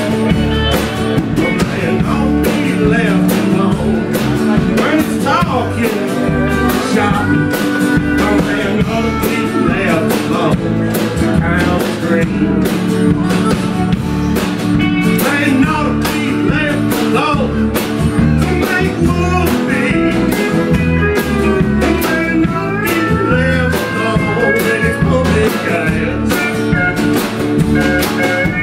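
Live country-blues band playing: steel guitar, electric bass, acoustic guitar and drums, with a steady drum beat and sliding melody lines.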